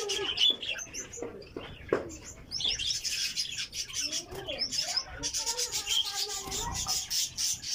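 Small aviary birds chirping, with rustling and scraping from about two and a half seconds in as a hand works inside the cage at a nest.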